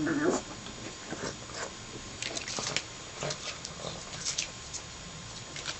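A short pitched animal call in the first half second, then scattered light clicks and taps.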